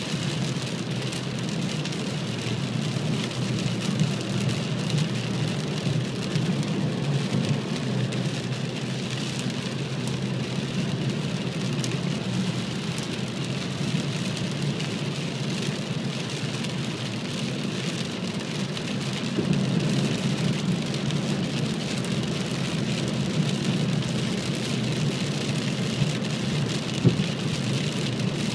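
Heavy rain drumming on a car's windshield and roof, heard from inside the cabin, over a steady low rumble of tyre and road noise on the flooded freeway.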